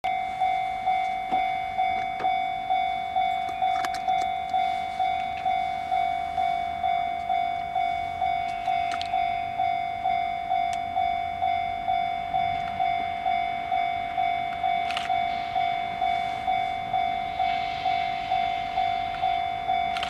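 Japanese level-crossing warning bell ringing as a train approaches: a steady electronic ding repeated about twice a second.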